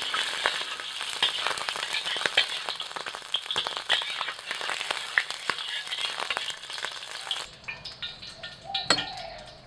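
Peeled king prawns sizzling in hot oil in a wok, a dense hiss with many sharp pops. The frying cuts off about three-quarters of the way through, leaving a quieter stretch with a single knock.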